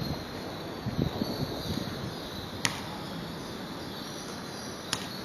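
Outdoor ambience in the rain: a steady hiss of light rain with insects chirping. A few low bumps in the first two seconds, and two sharp clicks, one near the middle and one near the end.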